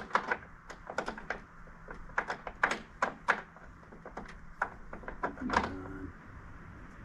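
A string of sharp, irregular knocks and clunks, roughly two a second, from hand work on the skid steer's bucket attachment.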